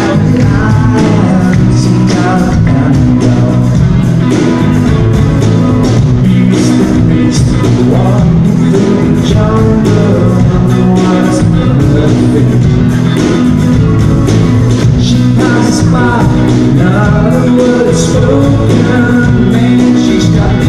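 Soft-rock band playing live, with a male lead vocal over a steady bass and drum beat, heard loud from among the audience.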